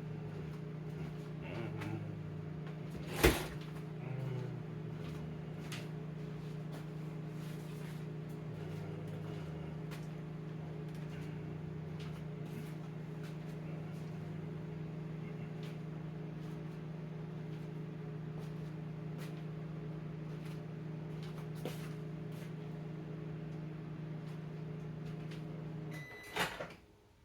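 Microwave oven running with a steady hum, then shutting off near the end with a short beep and a click as the cycle finishes. A single sharp knock sounds about three seconds in.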